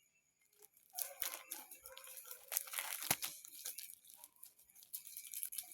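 Packaging being crinkled and rustled by hand, an irregular run of sharp crackles that starts about a second in and dies down near the end.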